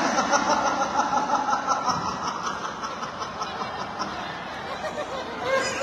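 Audience laughing with some crowd chatter, a rapid pulsing laughter.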